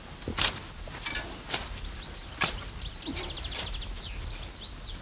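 A shovel blade digging into loose garden soil, about five sharp scraping strokes. Birds chirp behind it, with a quick trill after the middle.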